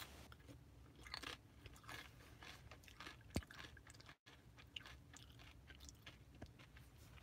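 Faint chewing of a mouthful of food: soft, irregular wet smacks and small crunches, with one sharper click about three and a half seconds in.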